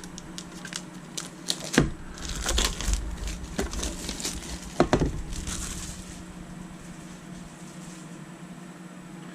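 A metal trading-card tin being opened and its contents handled: scattered clicks and knocks, a sharper knock about two seconds in, and rustling of paper and card packaging, quieter over the last few seconds.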